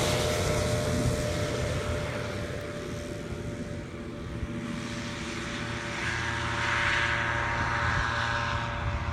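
Paramotor's engine and propeller running steadily under power, fading over the first few seconds, swelling again about six to eight seconds in, then fading.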